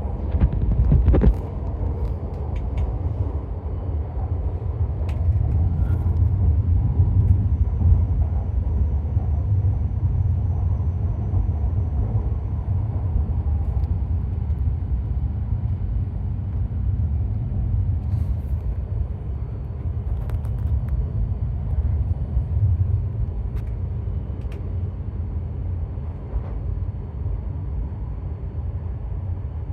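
Tohoku Shinkansen train running at speed, heard inside the passenger cabin: a steady, deep rumble of wheels and running gear that grows louder a few seconds in and then holds. A single sharp knock sounds about a second in.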